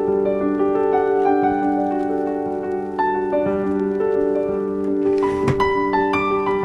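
Background piano music playing held notes and chords, with a brief noise about five seconds in.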